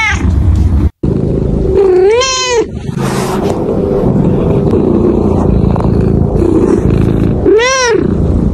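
Domestic cat meowing: the tail of one meow at the start, another about two seconds in, and a third near the end. Each call rises and then falls in pitch.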